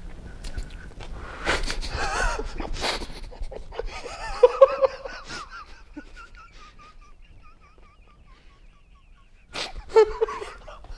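Men trying to whistle through mouthfuls of dry saltine crackers: breathy puffs, spluttering and laughter, then a thin, wavering whistle of short warbling notes that lasts about four seconds and drifts slightly down, ending in a burst of laughter.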